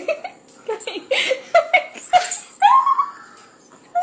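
Someone laughing in short breathy bursts, and about two and a half seconds in a single rising, high-pitched cry.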